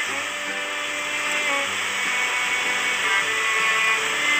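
Background music of slow, held notes that change every second or two, over a steady rush of flowing river water.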